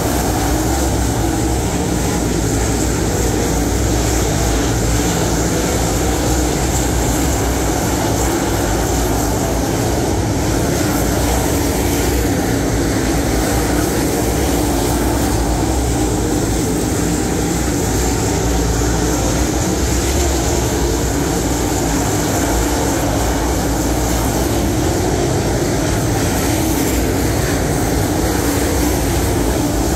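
A pack of dirt late model race cars racing around a clay oval, their V8 engines running loud and continuous with no letup.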